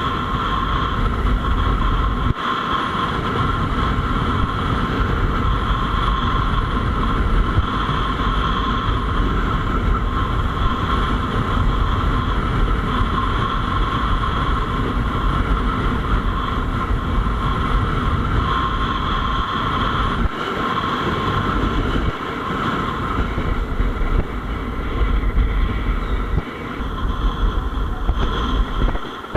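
Wind rumbling on the microphone of a kitesurfer's action camera during a ride, with a steady high whine over it. The rumble drops away briefly a few times and falls off near the end.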